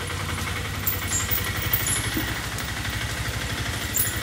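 An engine idling with a steady, rhythmic low throb.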